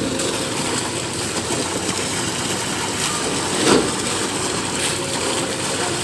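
Concrete boom pump truck running steadily as concrete is pumped out through the hose, with a heavier thud about two-thirds of the way through as a pulse of concrete is pushed through.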